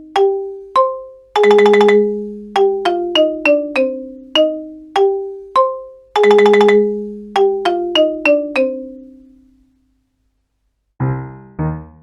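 Cartoon sound effect: a bright mallet-percussion jingle of struck, ringing notes. A quick run climbs, lands on a ringing chord and steps back down, and the whole figure plays twice before dying away. After a brief pause near the end, a lower, fuller keyboard phrase begins.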